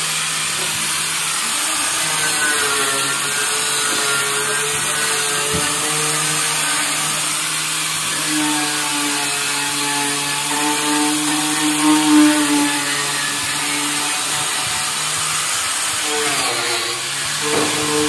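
Handheld electric power tool running steadily against the rusty metal of a tricycle sidecar, a scraping hiss over the motor's hum as it cleans off rust. Its pitch dips and recovers as it is pressed into the metal, hardest about twelve seconds in.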